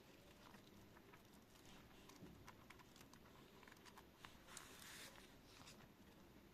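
Faint handling of a slim Bible: soft scattered ticks, with a short rustle of thin paper pages about four and a half seconds in.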